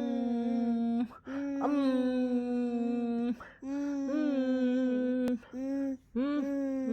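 Toddler vocalizing in long, steady-pitched held 'aah' tones, five in a row, each a second or two long with short breaks for breath. A brief click about five seconds in.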